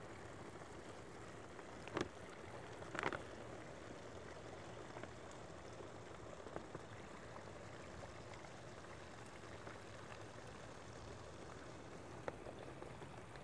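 Water from a garden hose running into a Treegator slow-release watering bag: a faint, steady flow as the bag fills. A couple of light knocks come about two and three seconds in.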